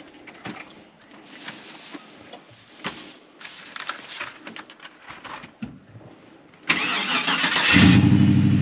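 Faint clicks and rustling, then about seven seconds in a starter cranks briefly and the LS-series V8 swapped into a 1976 Chevy LUV pickup catches on a cold start. It settles into a loud idle with a fast, even pulse.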